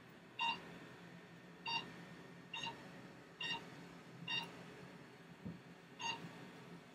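Secret RF microneedling machine beeping as its handpiece fires at each spot on the skin: short high beeps at a steady pace of about one a second, seven in all, over a faint steady hum.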